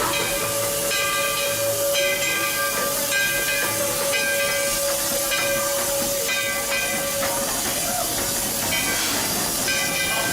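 Replica Baldwin three-chime steam whistle on a steam locomotive blowing a run of short, evenly spaced chord blasts over steady steam hiss. The blasts stop for a couple of seconds, leaving only the hiss, and start again near the end.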